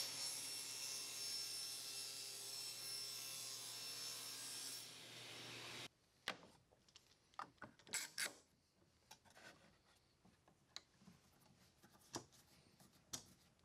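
SawStop table saw cutting a plywood shelf, a steady hiss with a faint high whine, which stops abruptly about six seconds in. Then scattered short clicks and knocks as a pocket-hole jig is set on the bench and a bar clamp is clamped onto the shelf.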